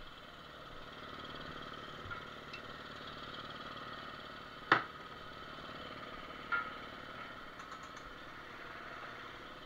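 Steady hum of a running motor, with a sharp click a little before halfway through and a smaller click about two seconds later.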